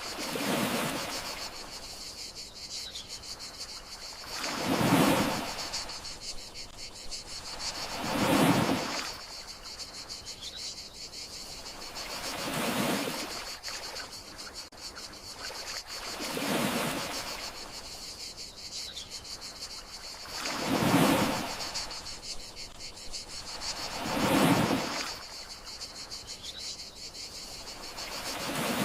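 Gentle sea waves washing onto the shore, each swell rising and falling about every four seconds, under a steady high trill of crickets.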